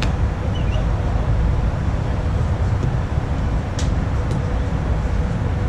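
Steady low rumbling background noise with a faint steady hum, and a few faint ticks near the end.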